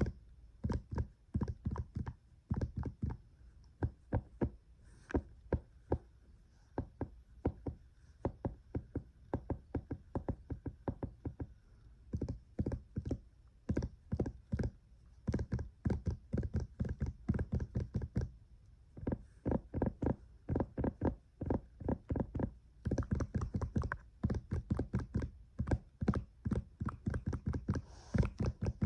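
Fast, aggressive ASMR tapping and knocking close to the microphone, in quick runs of several taps a second with brief pauses.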